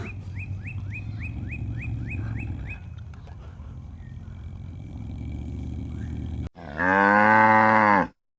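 A cow mooing: one long call lasting over a second near the end, ending abruptly. Before it there is a run of short high chirps, about four a second, over a low rumble.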